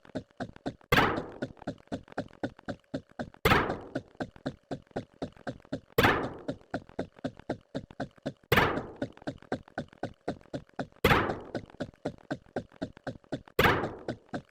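A loud thunk repeating about every two and a half seconds, six times, with rapid light clicks, several a second, running between the thunks.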